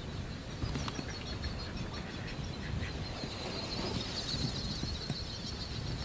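Duck calling: a few short quacks early on, then a rapid, high whistling trill that grows louder about three seconds in, over a low rumble.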